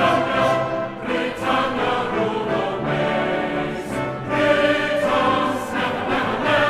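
Background choral music: a choir singing long held notes.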